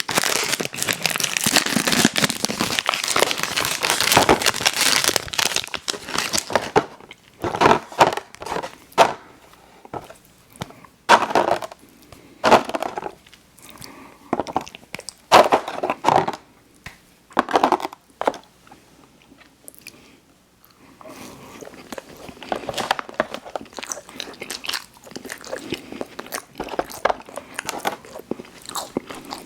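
Close-miked ASMR eating sounds: dense crinkling of a plastic snack wrapper for the first several seconds, then a string of separate short crackles and crunches, a brief lull, and a fainter crackly patter near the end.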